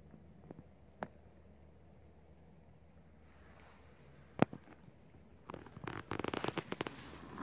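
Dry leaves and brush rustling and crackling close by over the last two seconds, after single sharp clicks about one and about four and a half seconds in. A faint insect chirps steadily throughout.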